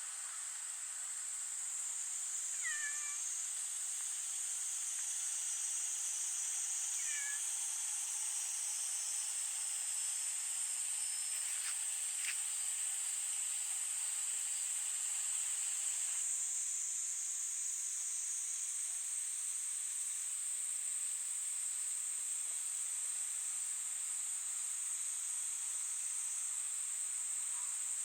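A cat meows twice, briefly, about three and seven seconds in. Behind it runs a steady, high-pitched chorus of insects.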